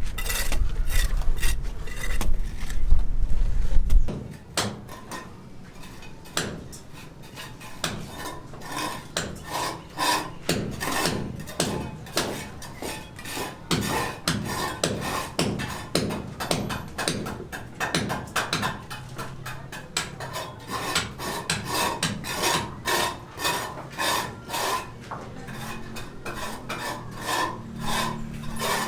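A low rumble for the first few seconds, then a hand tool scraping or rasping in steady repeated strokes, about one to two a second.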